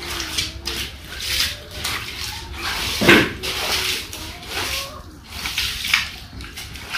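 Shallow water on a floor being scooped up and tossed with a small container: a run of splashes and sloshes, one every second or so, the loudest about three seconds in.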